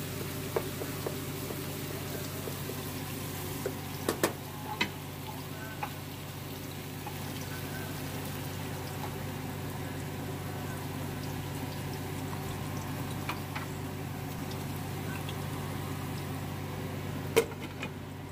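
Kitchen background: a steady low hum with a few sharp clinks, a cluster about four seconds in and a louder one near the end.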